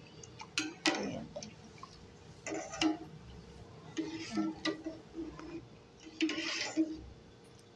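Metal spoon stirring milk in an aluminium pot, with scattered light clinks and short scrapes against the pot's side and bottom.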